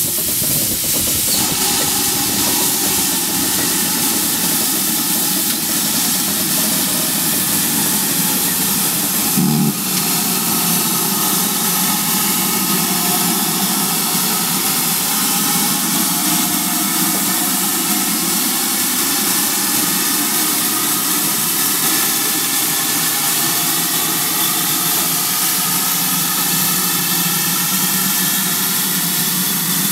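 Steam locomotive 5199, a GWR large Prairie tank engine, standing with steam hissing steadily. A brief thump about nine and a half seconds in.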